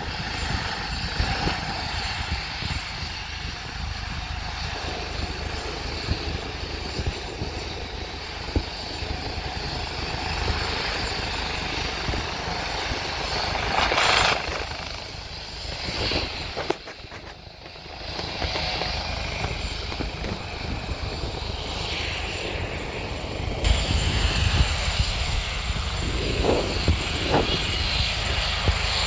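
Helicopter running on the ground with its rotors turning: a steady turbine and rotor noise with a heavy low rumble. It dips briefly partway through and grows louder near the end.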